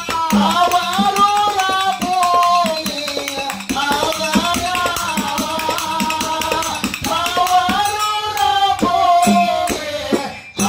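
A man singing a Kannada folk song (dollina pada) in long held phrases, accompanied by small hand cymbals struck in a fast rhythm and a hand drum. The music dips briefly near the end.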